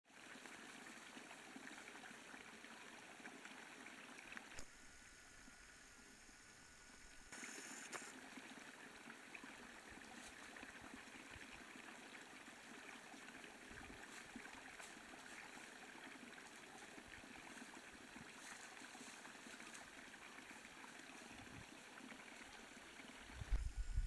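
Faint, steady trickle of a small creek running between rocks, dropping quieter for a couple of seconds about five seconds in.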